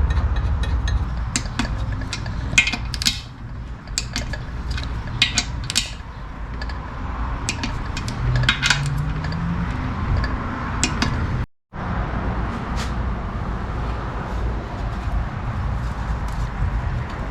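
Metal transmission parts and hand tools clinking and clicking as they are handled on a workbench, in scattered sharp taps, over a steady low hum.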